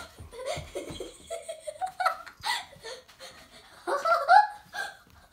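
Laughter: several bursts of giggling that come and go.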